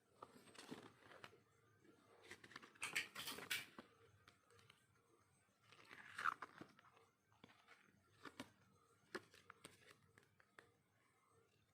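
Quiet handling of packaging and contents: scattered soft taps and clicks, with a brief crinkling rustle about three seconds in and another around six seconds in.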